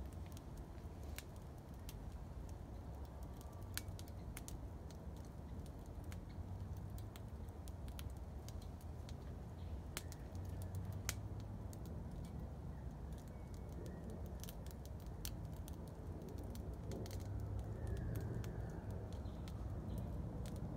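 Twigs and sticks burning in a small metal grill bowl, crackling with irregular sharp pops and snaps over a low steady rumble.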